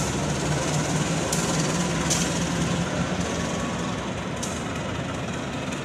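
A KAI CC 204 diesel-electric locomotive running light while shunting, its diesel engine giving a steady drone that fades a little as it moves off. A few sharp clicks of wheels on rail come through, one at the very start and others after about one, two and four seconds.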